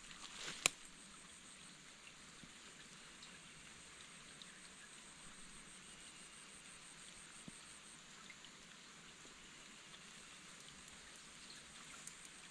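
Steady light rain falling, with one sharp click a little under a second in.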